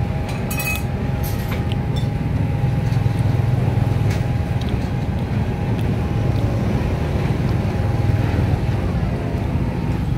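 Steady low rumble of nearby traffic, with a faint steady hum above it and a few light clicks about a second in.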